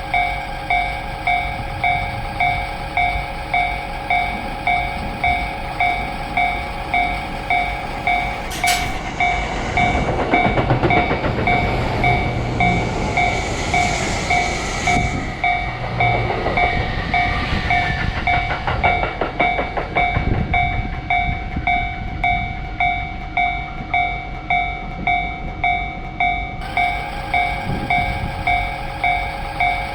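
A Japanese level-crossing alarm bell dings in a steady, even rhythm throughout. An electric train passes through the crossing from about nine seconds in until about twenty-one, its rushing noise swelling and then fading with quick wheel clatter at the tail.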